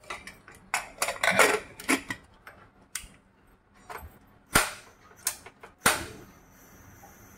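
Pressure cooker being closed up for cooking: an irregular run of sharp metal clicks and clanks as the lid is fitted and locked and the cooker is set down on the stove, followed near the end by a faint steady hiss.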